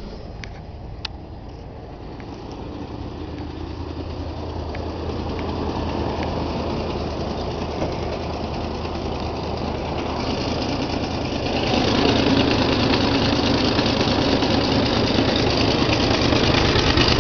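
Dodge pickup's carbureted engine idling steadily just after a cold start, heard up close under the open hood and much louder from about twelve seconds in. The owner takes its sound for an exhaust leak.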